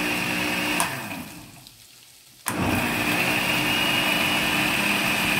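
Electric blender blending bread, eggs and milk into a thick batter. It is switched off about a second in and winds down with a falling pitch, then is switched back on about two and a half seconds in and runs steadily again.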